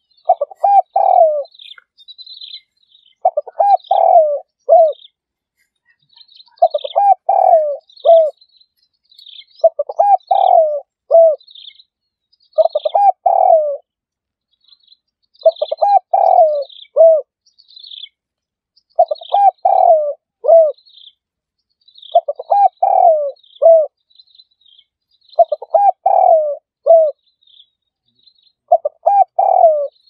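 A spotted dove (terkukur) cooing: about ten multi-note coo phrases, one roughly every three seconds. Small birds chirp thinly and high above it. It is a dove lure call of the kind played to trap doves.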